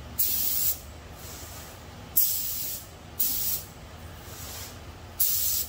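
Gravity-feed automotive spray gun hissing in four short bursts as the trigger is pulled, putting a first pass of base coat on a helmet. An air compressor's steady low hum runs underneath.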